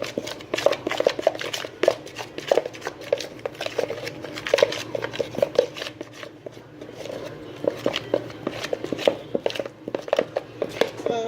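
Spoon stirring a sticky slime mixture of flour, oil and dish soap in a bowl, with rapid, irregular clicks and taps of the spoon against the bowl.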